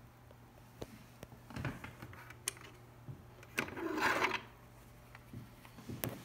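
Plastic SynScan hand controller being handled at its holder: scattered light clicks and a short scraping rustle about four seconds in, over a faint steady hum.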